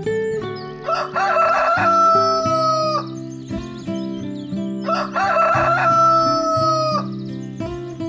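A rooster crowing twice, each crow about two seconds long: a rough opening, then a long held note that sinks slightly before cutting off. Background music with low sustained notes plays throughout.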